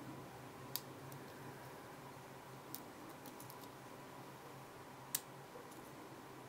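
Faint clicks and ticks of a short hook pick working the serrated pin tumblers of a Commando padlock under light tension, pins clicking as they set. A sharp click comes about three-quarters of a second in, a few small ticks follow around the middle, and the loudest click comes about five seconds in.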